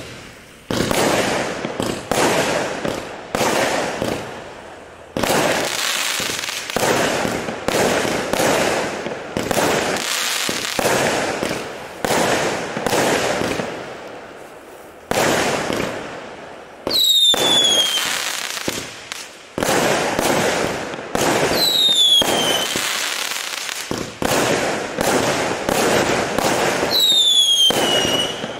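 A 0.6-inch, 100-shot mould cake firework firing shot after shot, roughly one a second, each a sudden bang that fades away. Three times in the second half a falling whistle sounds over the shots.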